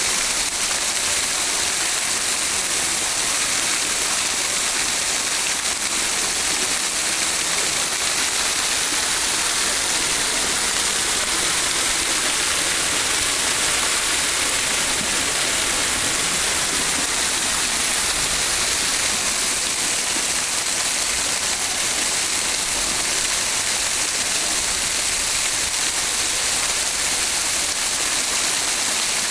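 Steady rain falling hard, an even hiss with no breaks or changes.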